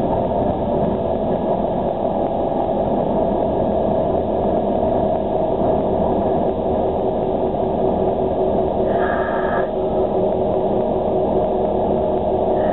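Diesel locomotive engine running steadily, heard from inside the cab. A short higher tone sounds about nine seconds in.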